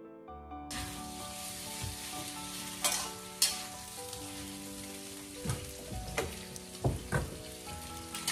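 Sliced cured pork (larou) sizzling in a hot black wok over a wood fire, the hiss starting under a second in. A metal ladle knocks and scrapes against the wok several times as the meat is stirred.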